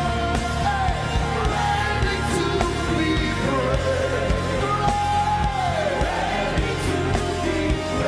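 Live gospel worship music: a band with a steady bass line and regular drum beats under long held melody notes that slide between pitches, with singing.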